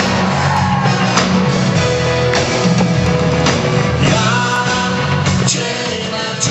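Live rock band playing loudly, with singing over guitar, bass and drum kit.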